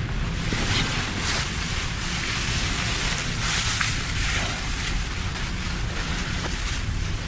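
Sea surf and wind: a steady rushing wash that swells and eases, over a constant low rumble.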